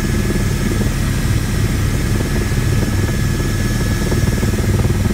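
Helicopter's engine and rotor heard from inside the cabin during the final descent to land: a loud steady drone with a rapid low blade beat and a thin steady high whine over it.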